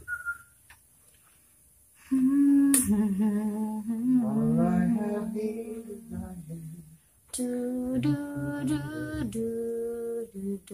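A person humming a slow tune in held, gliding notes, starting about two seconds in and resuming after a short break near seven and a half seconds. The humming comes right after the tail of a whistled note, with two sharp clicks between.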